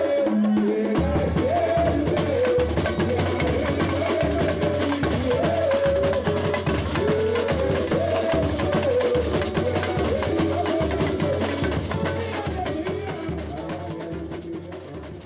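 Samba bateria playing live: surdo bass drums keep a steady pulse under rattling snare drums (caixas), with a melody over the top. The sound fades out over the last few seconds.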